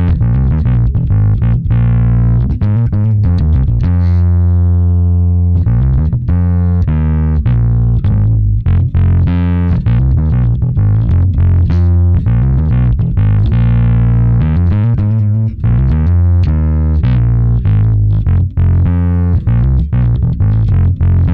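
Electric bass guitar played through a distortion effect: a riff of quick plucked notes with a gritty tone, and one note held and left ringing about four seconds in.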